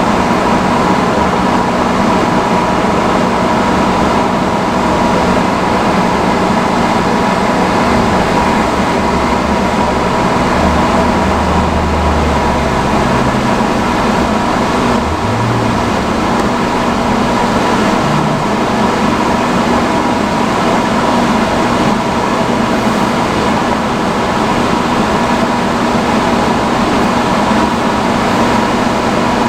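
Vintage salon chair hood hair dryer running steadily on its highest setting: a constant loud blower whir with a steady high tone and a low hum.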